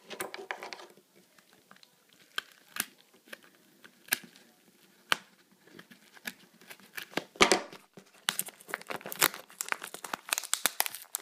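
Small scissors snipping a few separate times at a paper mailing envelope, then a dense run of paper crinkling and tearing from about seven seconds in as the envelope is cut and pulled open.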